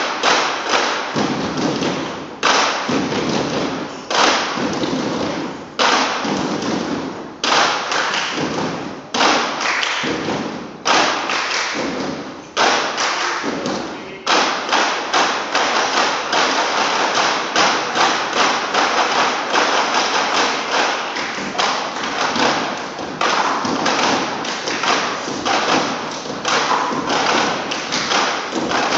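Broomsticks struck in rhythm on a wooden stage floor by a group of percussionists. In the first half, rapid runs of strikes each open with a loud accent and repeat about every second and a half to two seconds. From about halfway on, the strikes run on as a continuous fast pattern.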